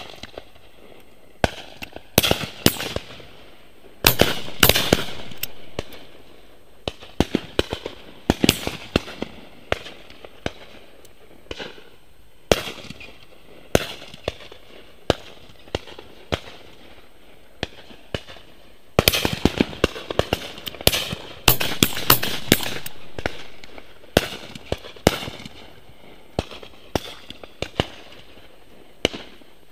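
Shotguns firing from several guns: scattered single shots, some sharp and near, others distant and crackling. There is a heavy volley about four seconds in and a longer spell of rapid fire about two-thirds of the way through, the shots trailing off in rolling echoes.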